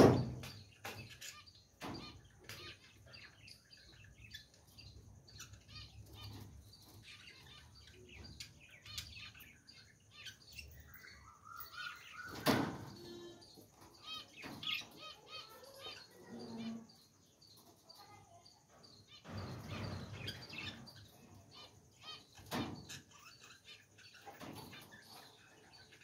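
Caged budgerigars chirping and warbling in quick, short notes, with a few louder, brief scuffling bursts of wing flapping.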